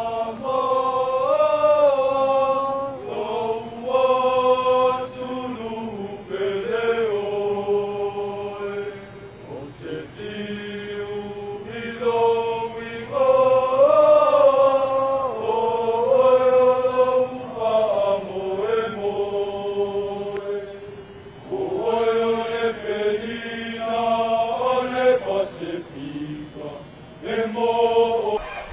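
A group of men singing an anthem slowly in unison, in long held notes grouped into phrases with short breaks between them.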